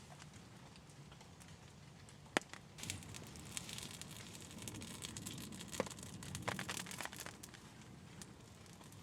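Campfire crackling faintly, wood snapping with a sharp pop about two and a half seconds in and another near six seconds, between clusters of small crackles.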